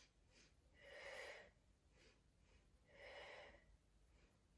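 Faint breathing of a woman exerting herself: two soft breaths about two seconds apart.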